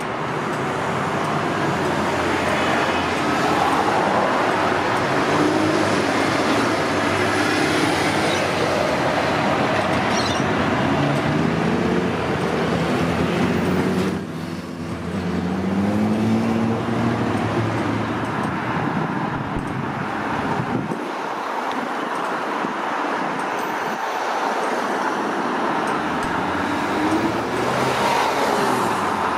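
Busy urban road traffic: cars and other vehicles driving past with steady tyre and engine noise, and engine notes rising and falling as vehicles pull away and slow through the middle.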